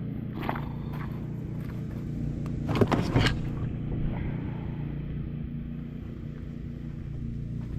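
Kayak paddling: scattered knocks and splashes of the paddle against the water and the hull, with a louder cluster of knocks about three seconds in, over a steady low rumble.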